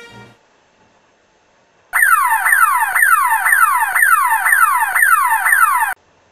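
Electronic siren wailing in rapid falling sweeps, about two a second, each dropping from a high to a lower pitch. It starts about two seconds in and cuts off abruptly near the end.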